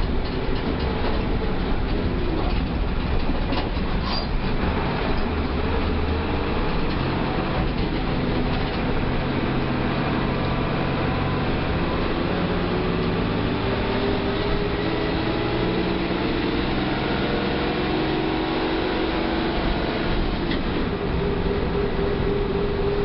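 Diesel engine of a Mercedes-Benz OF 1318 bus running steadily under way, its note shifting and slowly rising in the second half.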